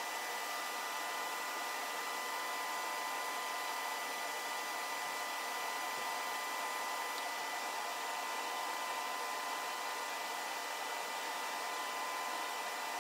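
DIY laser powder-bed metal 3D printer running a test print: a steady blower-like hiss with faint high steady tones.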